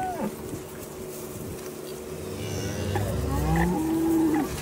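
Cattle lowing close by, with one low moo rising and levelling off about three seconds in. A utility vehicle's engine hums steadily underneath.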